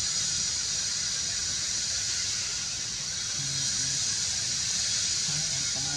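Steady high-pitched hiss of forest insects droning without a break.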